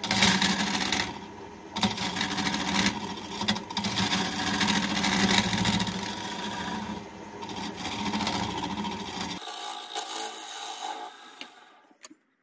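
A wood lathe runs with a steady motor hum while a bowl gouge cuts the inside of a spinning wooden bowl, giving a rough scraping hiss. After about nine seconds the low hum drops out and a thinner, higher sound carries on, then cuts off suddenly near the end.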